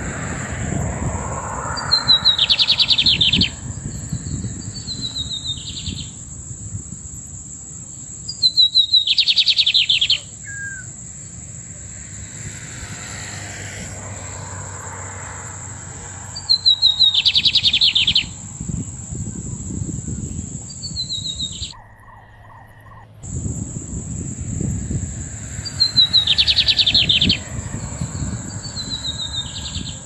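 Lined seedeater (bigodinho) singing: short, loud phrases of rapid notes repeated every few seconds. A steady high-pitched whine and a low wind rumble run behind the song, and everything drops out briefly about two-thirds of the way through.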